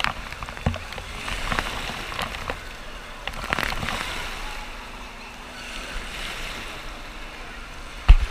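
Wave-pool water splashing and washing over a camera at water level, with surges about a second and a half and three and a half seconds in. A sharp knock near the end is the loudest moment.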